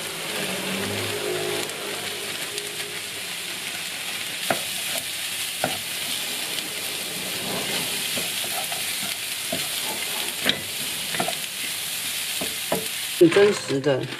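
Chopped onion sizzling as it fries in oil in a pan, stirred with a wooden spatula that scrapes and taps against the pan now and then. Near the end a short, louder clatter breaks in.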